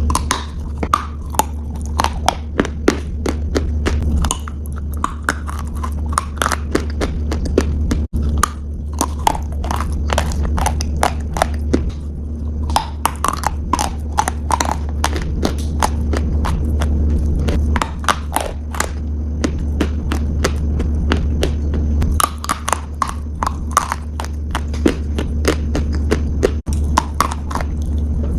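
A piglet chewing crunchy food: rapid, irregular sharp crunches, several a second, with a few short lulls, over a steady low hum.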